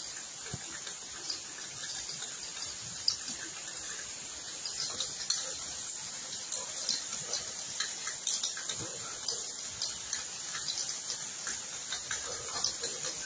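Meat sizzling on a wire grill over glowing charcoal: a steady hiss with many small, irregular pops and crackles from the fat.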